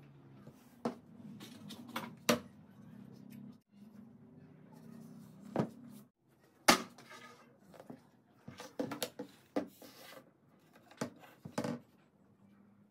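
Sharp clicks and knocks of a screwdriver, a wooden stock and a plastic pipe being worked and handled on a hard worktable, the loudest about seven seconds in and a quick cluster around nine seconds, over a faint low hum.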